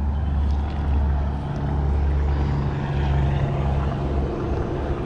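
A steady low engine drone, holding one pitch throughout.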